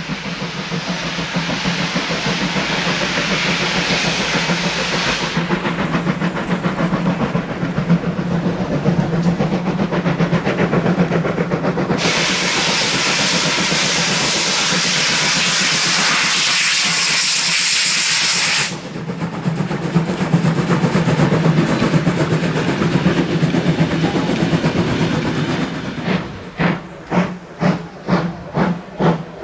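Steam locomotive venting steam with loud hissing, a long blast near the middle cutting off suddenly. Near the end it beats out steady exhaust chuffs, about two a second.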